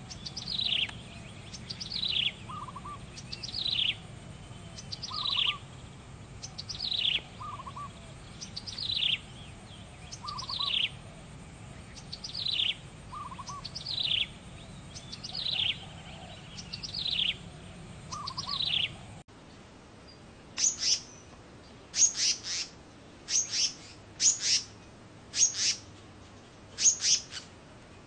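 A small songbird calling over and over: a downward-sliding call about every second and a half, with a short, lower note between calls. About two-thirds of the way in the background changes, and sharper, higher downward-sliding calls follow, often two close together.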